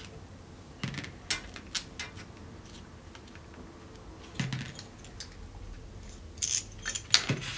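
Scattered small metallic clicks and clinks as the screws are taken out of a flow meter's lid and set down on a tabletop, with more of them near the end.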